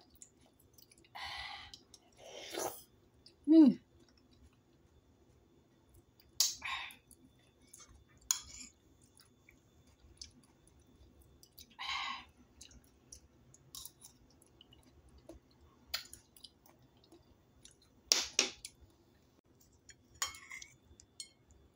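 Eating sounds: a metal spoon scrapes and taps on a ceramic plate as soft tofu is scooped up, with mouth and chewing noises a few seconds apart. There is a short 'mm' hum of approval about three and a half seconds in.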